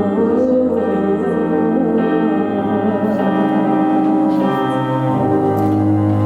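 Closing bars of a live vocal performance: a woman singing held notes with vibrato over sustained backing chords.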